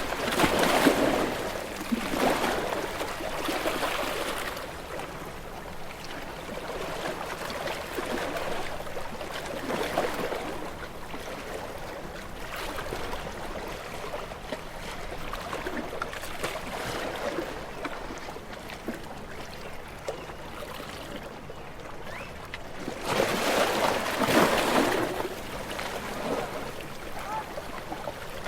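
Gentle waves washing onto a shore, in repeated swells of rushing water. The largest surges come in the first few seconds and again about three-quarters of the way through, with smaller washes between.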